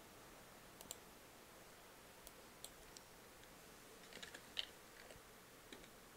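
Faint computer keyboard and mouse clicks: a few scattered single clicks, then a quick run of keystrokes about four seconds in.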